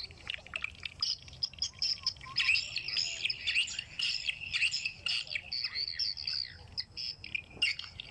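Swiftlets calling: a dense, continuous, rapid high-pitched twittering of many short chirps.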